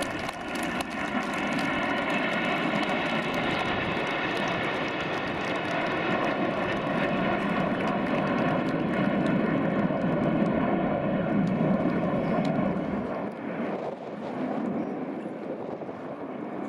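Avro Vulcan's four Bristol Olympus jet engines together with the Red Arrows' Hawk jets flying past in formation: loud, steady jet noise with a whining tone in it, easing off near the end as the formation draws away.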